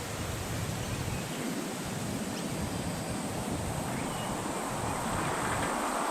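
Steady outdoor noise, a wind-like hiss or rustle, with a few faint short chirps.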